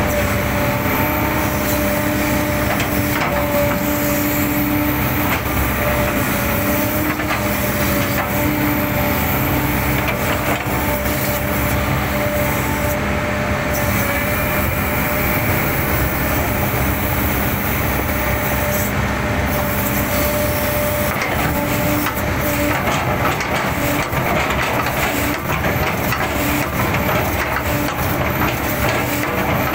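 A 20-tonne-class excavator's diesel engine running steadily under load with a constant hydraulic whine, as the bucket chops and crushes oil palm trunk pieces with repeated knocks, more often in the second half.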